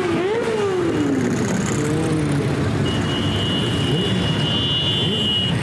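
Motorcycles riding past one after another, their engines running. In the first second one engine's pitch rises and then falls. A steady high tone sounds for about two and a half seconds in the second half.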